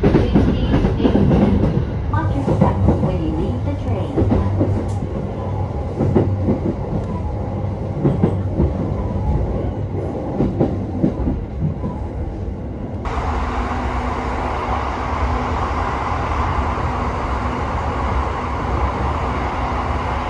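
JR local train running on the rails: a low rumble with irregular clacks and knocks from the wheels and carriage. About thirteen seconds in the sound switches abruptly to a steady rushing noise.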